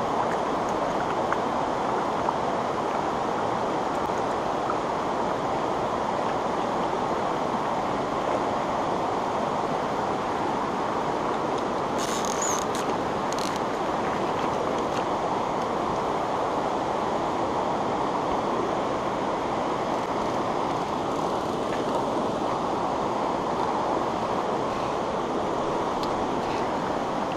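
A mountain stream rushing over rocks, a steady even flow of water noise. About halfway through there is a brief scratchy rustle.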